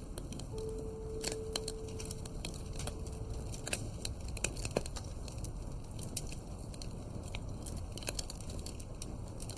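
Wood fire crackling in a fireplace, with frequent sharp pops and snaps over a steady low rustle.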